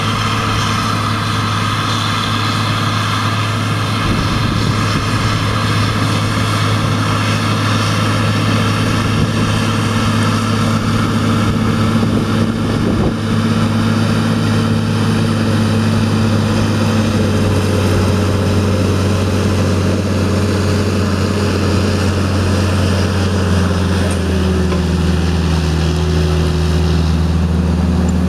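John Deere 7800 tractor's six-cylinder turbo diesel running steadily under load while pulling a Lemken Smaragd 9 stubble cultivator. The engine note shifts lower twice in the second half, as the tractor comes close.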